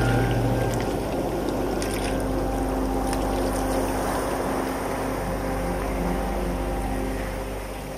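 Steady wash of surf and tidepool water against rocks, overlaid with sustained low drone tones that change pitch a few times, the lowest dropping out about a second in.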